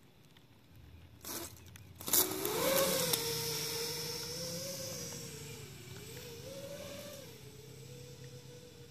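Small FPV racing quadcopter's 2205 brushless motors and propellers whirring as it lifts off about two seconds in, the whine wavering up and down with throttle and growing fainter as it flies away.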